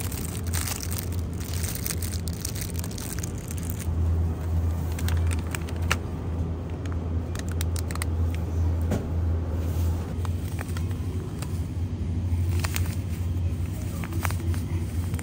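Plastic food packaging crinkling and clicking as tofu packs and a bag of sugar are handled and taken off shelves, over a steady low hum.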